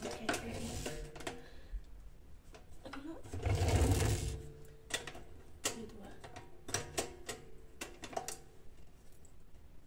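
Plastic clicks and knocks from a drum wet-and-dry vacuum cleaner being put together: its motor head is fitted onto the tank and the side latches are snapped shut. The clicks come at uneven intervals, with one louder clatter about three and a half seconds in.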